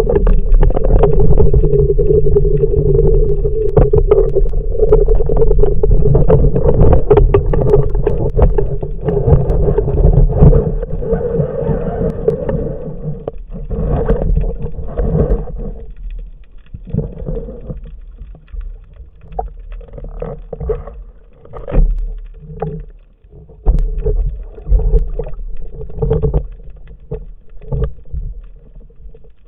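Muffled underwater handling noise picked up through the speargun-mounted camera's housing while a speared sea bass is hauled in on the shaft line. Water rushes steadily with a hum for the first dozen seconds or so, then it breaks into irregular knocks and surges.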